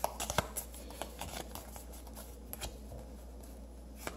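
Playing cards of the Express railroad card game being handled: a quick run of sharp flicks and snaps in the first half second as a hand is picked up and spread, then a few scattered soft clicks as cards slide against each other.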